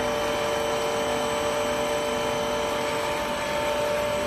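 Three-layer stretch film machine running: a steady machine hum and whine, several held tones over an even hiss of motors and air.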